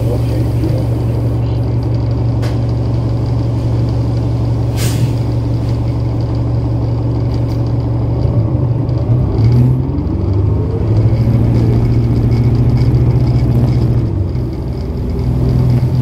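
Cummins ISL9 diesel engine of a 2011 New Flyer Xcelsior XD40 city bus running with a steady low drone; about halfway through its pitch starts to shift and it gets louder for a few seconds, easing off briefly near the end. A short sharp sound about five seconds in.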